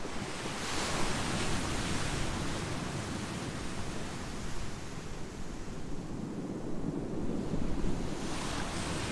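Ocean surf breaking on a beach of volcanic boulders and pebbles. One wave washes in with a hiss about half a second in and fades over a few seconds, and another builds near the end. Wind rumbles on the microphone throughout.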